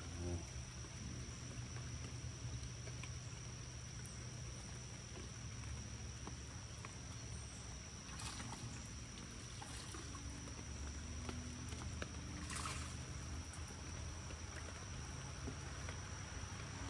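Quiet creek-side rain ambience with a steady low rumble and a faint steady high tone, and a few short splashes around the middle while a hooked fish is reeled in and lifted from the water.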